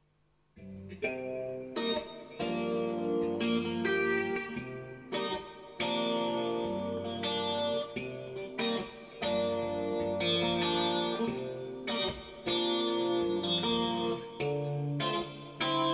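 Fender Stratocaster electric guitar played with a clean tone: a flowing mix of tapped and arpeggiated notes over low bass notes, starting about half a second in and running in phrases with short breaks.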